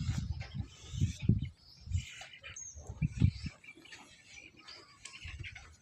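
Small birds chirping in short high calls, over irregular low rumbling bursts that fade out after about three and a half seconds.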